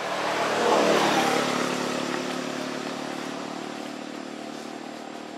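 A motor vehicle's engine running, loudest about a second in and then slowly fading.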